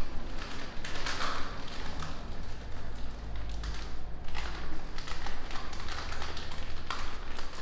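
Many light, irregular taps and clicks over a steady low hum.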